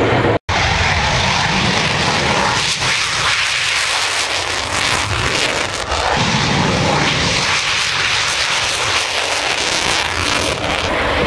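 Loud, steady engine noise from a military jet flying low past the crowd, with a momentary gap half a second in.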